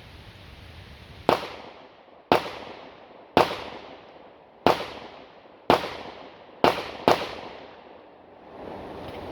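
Pistol fired seven times in a timed drill string, roughly a second between shots and the last two in quick succession. Each shot is a sharp crack with a short decaying tail.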